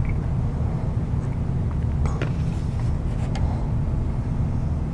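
A steady low rumble with a faint hum, with a few light clicks about two seconds in and again a little after three seconds.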